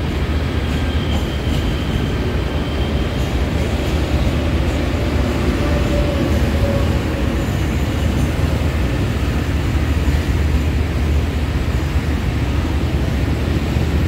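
Diesel-electric locomotive's engine droning steadily with rail running noise, heard from inside the driver's cab as the train rolls along.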